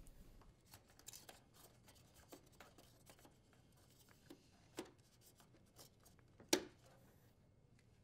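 Faint clicks and rubbing of plastic parts as a dishwasher float switch is pushed into the slot in the plastic bottom panel and snapped into place. The sharpest click comes about six and a half seconds in, and a smaller one shortly before five seconds.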